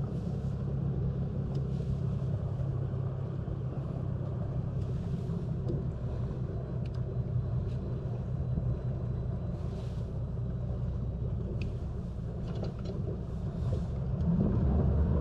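Yamaha 250 SHO V6 four-stroke outboard on a bass boat running steadily, then revving up and getting louder near the end.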